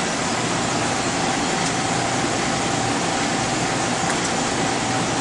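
Steady ventilation and equipment noise: a constant hiss with a faint steady whine in it.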